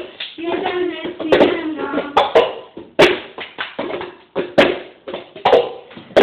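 Girls singing a cup-game routine, with hand claps and sharp taps of cups slapped down and picked up on a granite countertop in a rhythmic pattern.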